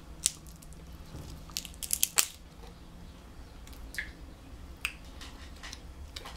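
Cooked snow crab legs being broken apart and the meat pulled from the shell: scattered sharp cracks and clicks with wet squishing, the loudest cluster about two seconds in.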